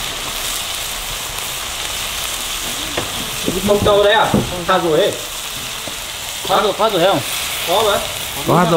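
Sour bamboo shoots and palm grubs stir-frying in a pan, a steady sizzle. From about three and a half seconds in, short wavering voice-like sounds come in over it several times.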